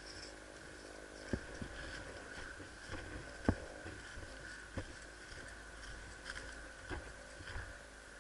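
Scattered soft knocks and rustling, about five distinct knocks with the strongest near the middle, over a faint steady high tone.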